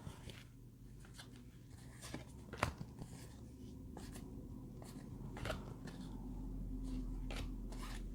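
Loose trading cards being handled and flipped through: scattered light clicks and short rustles of card stock. A faint low hum underneath grows a little louder about halfway through.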